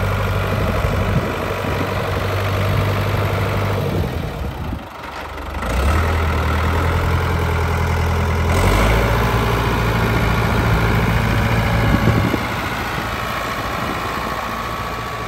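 Farm tractor engine running at low speed as the tractor is driven slowly, dipping briefly about a third of the way through and then picking up again with a change in pitch.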